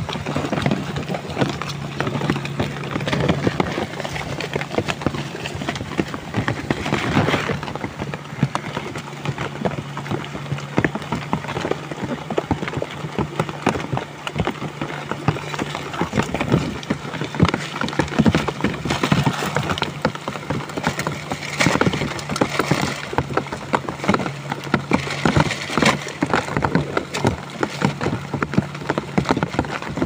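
Heavy rain falling on plastic sheeting: a dense, irregular patter of drops striking the plastic.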